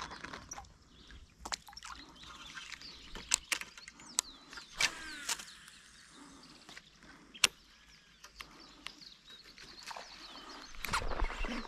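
Quiet lakeside ambience with short bird calls and scattered sharp clicks and taps from fishing rod and reel handling.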